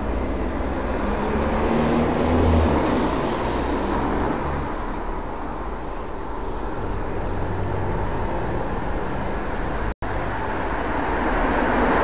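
Steady outdoor rushing noise with a low rumble underneath, swelling about two seconds in and rising again near the end, broken by a brief dropout about ten seconds in.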